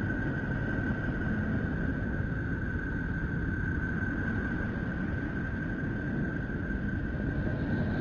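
Space-sound drone presented as the sound of Neptune: a steady low rumbling noise with one steady high tone held over it.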